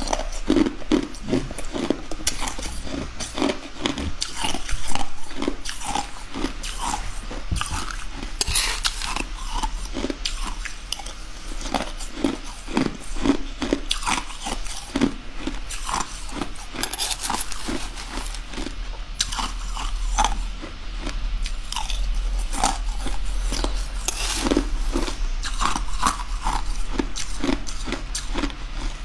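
A person biting and chewing mouthfuls of crushed coloured ice, with close, repeated crunches coming irregularly throughout.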